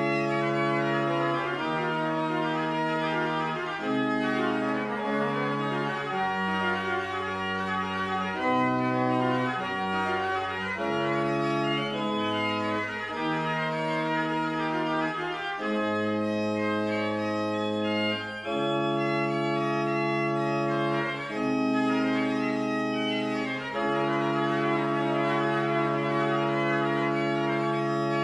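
Pipe organ playing slow polyphonic music, several voices moving in long held notes.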